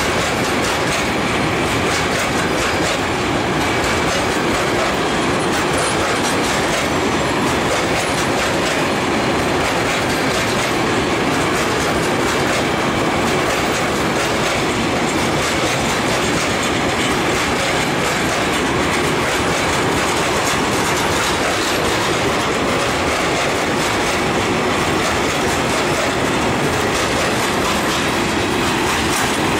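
Freight train of open-top gondola wagons rolling past, a loud steady rumble and clatter of steel wheels on the rails.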